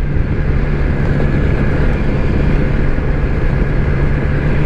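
BMW S1000XR's inline-four engine running steadily at a constant low pitch as the motorcycle cruises along, under a steady rush of wind and road noise.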